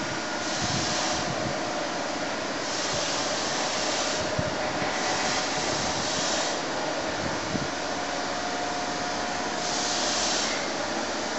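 Steady rushing workshop noise with a faint steady hum, broken by short surges of hiss every one to three seconds.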